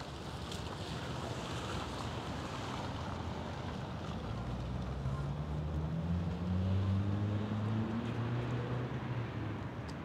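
Steady rushing outdoor traffic noise. About four seconds in, a motor vehicle's engine hum rises in pitch and grows loudest around the middle, then fades near the end.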